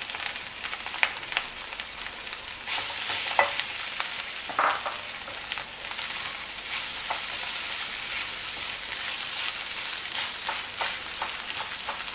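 Mashed boiled potatoes frying in hot oil in a kadhai: a steady sizzling hiss while a silicone spatula stirs them, with scattered sharp taps and scrapes against the pan, a few louder ones in the first few seconds.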